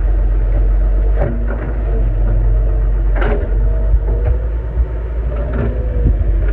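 Excavator's diesel engine running steadily, with three short clanks or scrapes spaced about two seconds apart.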